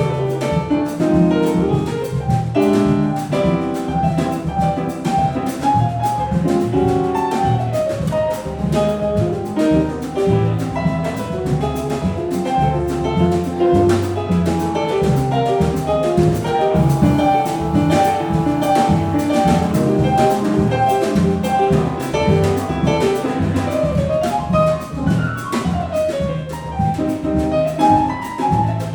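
Small jazz combo playing live, with a melodic line running over drums and bass.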